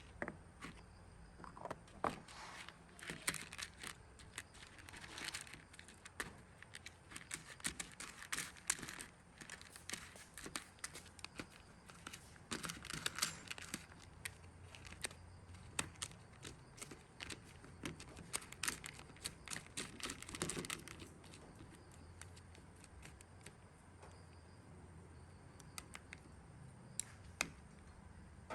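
Irregular crinkling, rustling and sharp clicks of hands handling something. The handling is busiest over the first twenty seconds and thins out to scattered clicks near the end, over a low steady hum.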